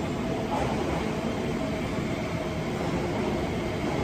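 Keio 5000-series electric train pulling into an underground station platform: steady running noise of its wheels and motors as it slows alongside the platform.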